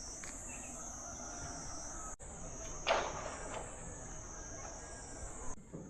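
Steady high-pitched chorus of insects, wavering slightly, with a brief louder sound about three seconds in.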